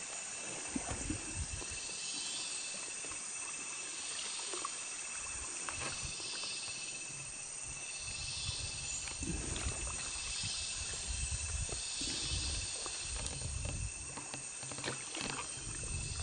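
Rainforest insect chorus: a steady high-pitched drone with a shimmering layer that swells about every two seconds. Irregular low rumbling underneath, heavier in the second half.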